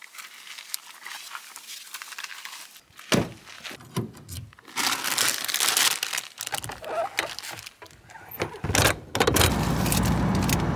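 Handling noises: a plastic bag rustling and a crisp packet crinkling, with scattered clicks and knocks. About nine seconds in, a steady low hum starts.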